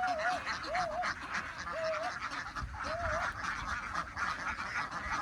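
A large flock of ducks quacking together in a dense, steady chatter, with one clearer call rising and falling about once a second that stops about three seconds in.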